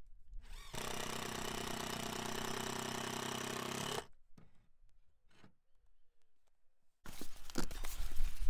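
Cordless impact driver running steadily for about three seconds, driving in the screw that fixes a solar-panel roof hook to the rafter under the clay tiles. A few light clicks follow, and about seven seconds in a louder stretch of rough handling noise begins.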